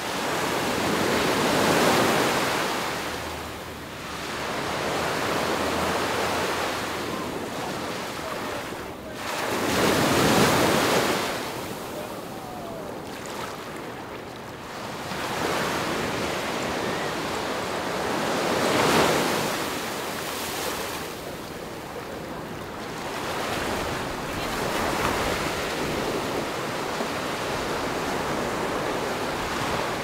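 Ocean waves breaking and washing up the shore, the surf swelling louder about every eight seconds.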